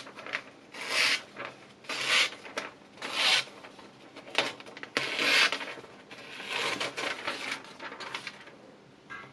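A kitchen knife edge being sharpened on a 3000-grit diamond sharpening stone: rasping strokes, roughly one a second, growing weaker near the end.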